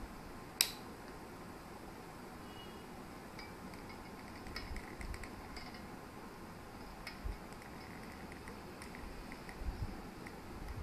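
Light plastic clicks and taps as a hot glue gun and a CD with a plastic bottle cap glued to it are handled, with one sharp click about half a second in and scattered small ticks and dull knocks later.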